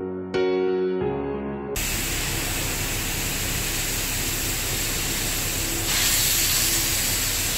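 A few soft piano notes, then about two seconds in they cut to a steady hiss of water spraying from a hose onto a wet tiled floor. The hiss gets a little brighter near the end.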